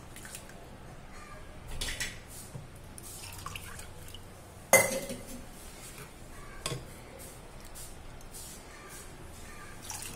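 Steel kitchen vessels knocking and clinking while ground tomato paste and then rinse water are poured from a steel mixer-grinder jar into a steel bowl of tamarind water, with small splashes and drips. There is one sharp metallic clank about five seconds in, and softer knocks around two and seven seconds.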